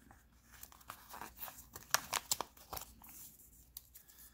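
Folded paper packaging being unfolded and handled by hand: soft paper rustling, with a quick run of sharp crackles about two seconds in.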